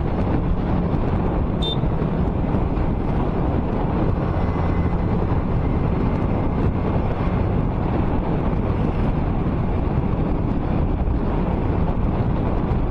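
Car driving along a highway: steady road and wind noise, with one brief faint click a couple of seconds in.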